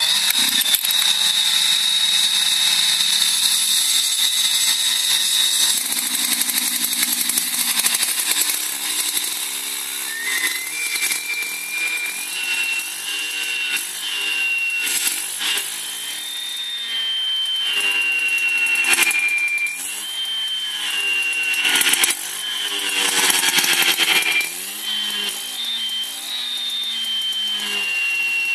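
Husqvarna 371K cut-off saw's two-stroke engine running, with a steady high whine for the first few seconds. Then it is revved up and down over and over, its pitch stepping and gliding higher and lower.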